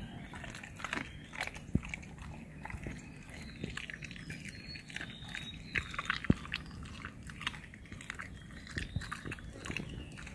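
German Shepherd chewing and biting its raw chicken and beef food, with irregular crunches and clicks several times a second.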